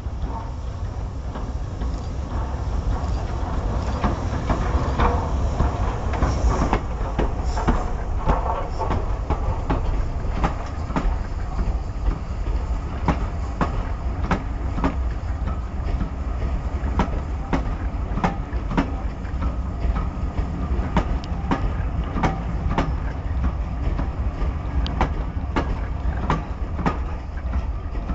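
A passenger train of vintage coaches hauled by Schools class steam locomotive No. 925 rolling past close by: a steady low rumble with a run of sharp clicks as the wheels cross the rail joints.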